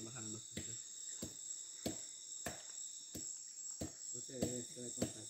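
Rainforest insects buzzing steadily in a high-pitched chorus, with a sharp click repeating evenly about every two-thirds of a second.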